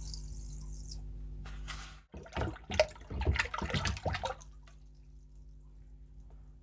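Salt poured into a plastic tub of water, a high hiss for about a second; then, about two seconds in, water sloshing and splashing for a couple of seconds as it is stirred by hand to dissolve the salt for an electrolysis rust-removal bath.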